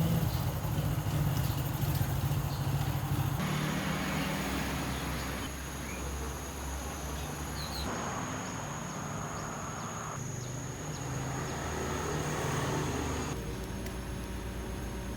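Outdoor background noise with a low engine hum and faint insect chirps, changing abruptly several times as the footage cuts.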